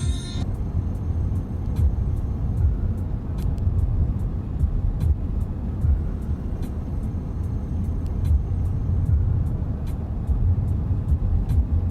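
An instrumental song playing through a 2015 Subaru WRX's stereo with Infinity Kappa front speakers, heard inside the cabin while driving, over steady road and engine noise. It has heavy bass and regular crisp percussion ticks.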